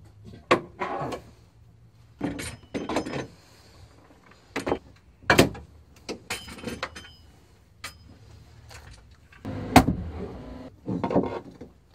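Irregular metallic clanks, knocks and scrapes as steel scissor jacks are released and handled under the boat's deck beams. A few clanks ring briefly, and the sharpest knock comes near the end.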